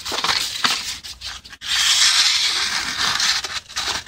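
Knife blade slicing through a test material in two long, dry rasping cuts, the second lasting about two seconds. The toothy edge bites and rasps as it cuts.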